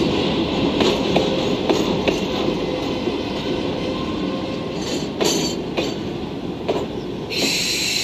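Chiki flat wagons loaded with long rails rolling past on steel wheels, with irregular clicks as the wheelsets cross rail joints over a faint steady whine. About seven seconds in, a steady hiss comes in on top.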